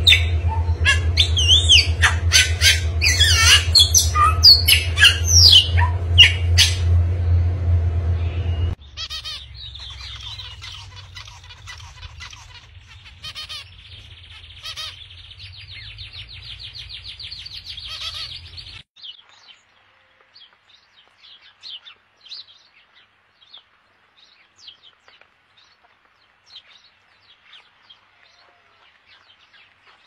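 Bird calls in three separate clips. First a Bali myna gives loud whistled calls, swooping in pitch, and harsh squawks over a steady low hum. At about nine seconds these cut to softer zebra finch chirps that end in a fast, buzzy repeated trill. After about nineteen seconds only faint, scattered chirps remain.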